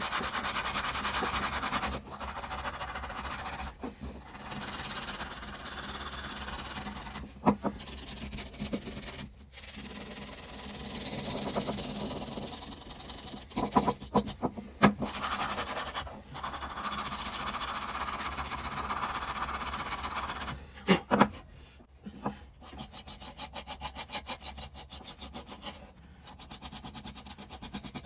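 Hand abrasive work on the butcher saw: long rubbing, scraping strokes with short pauses and a few sharp knocks, turning into a quick, even run of short strokes near the end.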